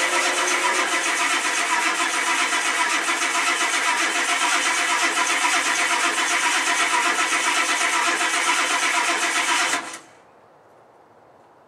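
Starter motor cranking the 1991 Ford F-250's 7.3-litre IDI V8 diesel, a fast, even churning that goes on for about ten seconds without the engine catching, then stops abruptly. This is a failed cold start.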